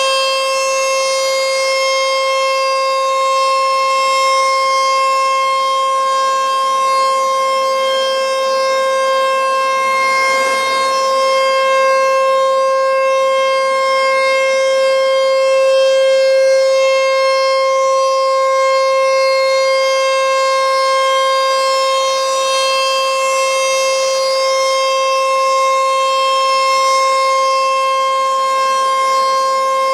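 American Signal ASC T-128 tornado siren sounding a steady wail, very loud, held at one unchanging pitch. Its loudness swells and eases slightly as the rotating head turns toward and away from the listener.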